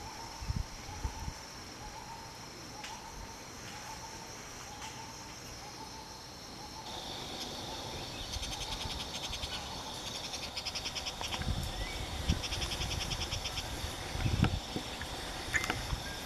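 Forest insect chorus: a steady high-pitched drone that thickens about seven seconds in, with rapid pulsing trills coming and going. In the first half a short call repeats under a second apart, and a few low thuds sound in the second half.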